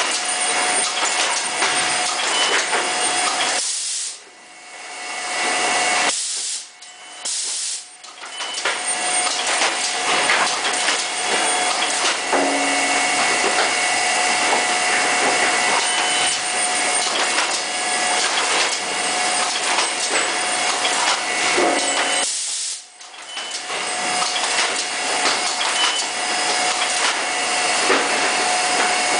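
A Scanvaegt ES7000 weighing and ES1201 labelling line running: a steady hiss of machinery with a constant hum tone and scattered light clicks. The sound drops away briefly three times.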